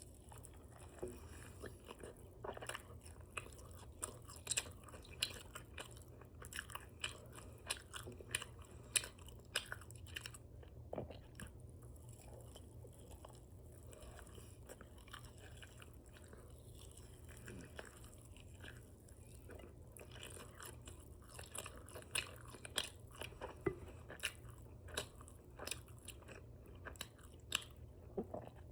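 Open-mouth chewing of spicy chicken wings dipped in ranch, up close: rapid wet smacking and lip clicks, sparser for several seconds in the middle, over a steady low hum.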